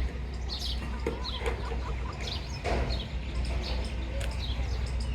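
Baby chicks peeping: a run of short, high chirps, each falling in pitch, over a steady low hum.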